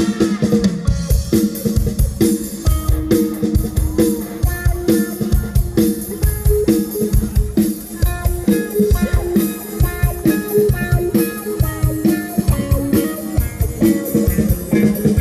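Live Thai luk thung band music without vocals: a drum kit keeps a steady beat under guitar and a repeating melody line.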